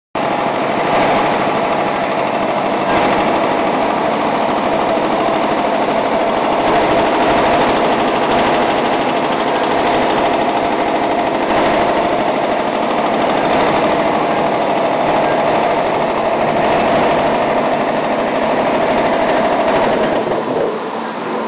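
Semi-automatic bagging and packing line machinery running: motors, blowers and conveyors make a loud, steady mechanical drone with a constant whine through it. Near the end the whine falls in pitch and the mix changes.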